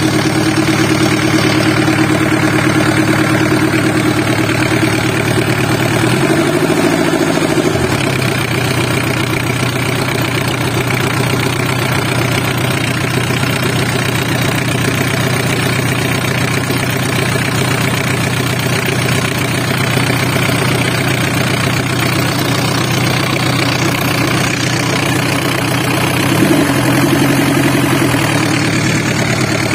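A freshly assembled engine on a test stand, idling steadily on its first test run. About six seconds in the engine speed briefly rises and falls, and there is a small change again a few seconds before the end.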